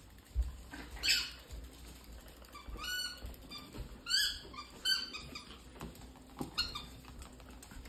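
Yorkshire terrier puppies at play giving short, high-pitched squeaky yips, about five spread over several seconds, one rising in pitch.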